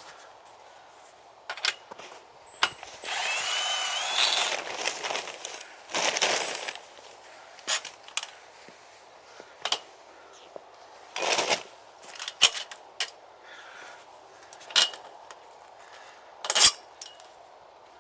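Milwaukee 3/8-inch cordless power tool with a 10 mm deep socket running in short bursts to undo trampoline nuts: the longest run, about three seconds in, has a rising whine, with shorter runs about six and eleven seconds in. Sharp metal clinks of the bolts, socket and wrench come between the runs.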